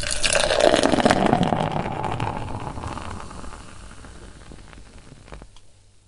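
Beer poured in a stream into a pint glass, splashing and foaming, loudest in the first couple of seconds. The pour then tapers off into the fainter fizz of the settling foam head.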